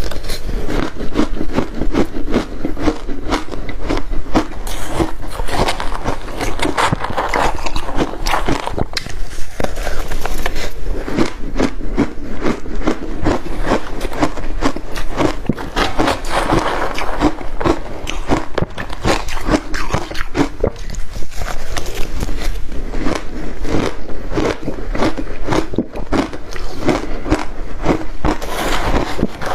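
Close-miked crunching of crushed ice being bitten and chewed, a dense run of crackling crunches throughout.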